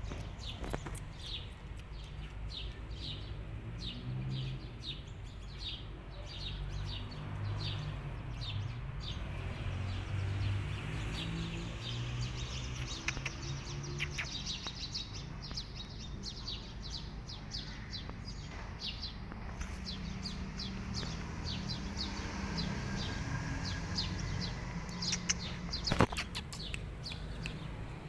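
Small birds chirping, a long run of short high chirps repeated several times a second, over a low steady hum, with one sharp knock near the end.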